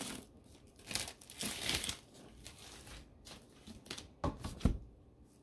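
Rustling and crinkling of a hardcover book and its paper dust jacket being handled and opened, then two knocks a little over four seconds in as the book is set down on a wooden desk.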